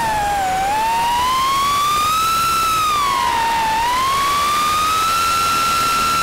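FPV quadcopter's brushless motors whining in flight, the pitch rising and falling smoothly with the throttle and holding high near the end.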